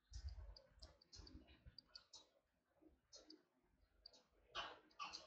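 Near silence with faint, scattered clicks and ticks from handwriting with a digital pen on a screen.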